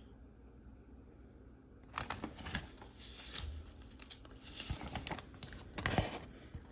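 Magazine pages being turned and handled: a series of irregular paper rustles and crinkles, starting about two seconds in.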